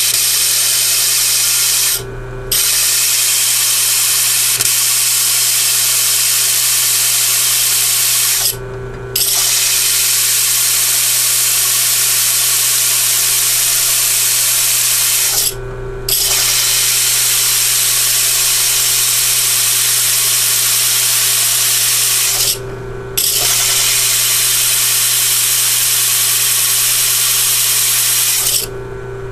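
Drill press with a diamond-coated core bit grinding through wet tile: a steady hissing grind over the hum of the press motor. The grinding breaks off briefly four times, about every seven seconds, while the motor keeps running. It stops near the end.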